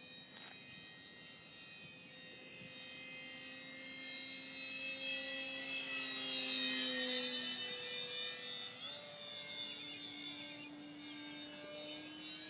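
Electric motor and propeller of a Parkzone P-47 radio-control model plane, a steady whine as it flies overhead. It grows louder to a peak about halfway through, then shifts in pitch and eases off as it moves away.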